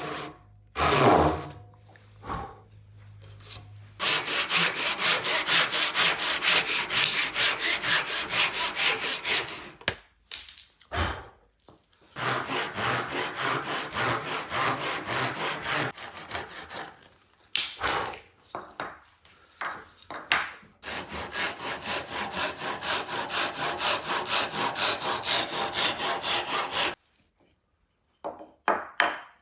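Hand saw cutting wood in quick, even back-and-forth strokes, about three a second. The sawing comes in three runs, with short knocks and handling sounds in the pauses between them.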